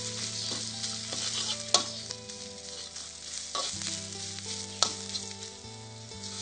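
Red curry paste frying in hot cooking oil in a pan, sizzling steadily, while a metal spatula stirs and scrapes it, with a few sharp clinks of the spatula against the pan.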